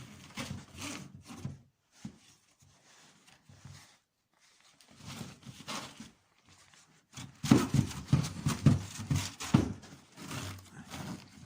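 Irregular knocks and clatter, most likely from the wooden hive parts being handled and set in place; the knocks come thickest and loudest in the second half.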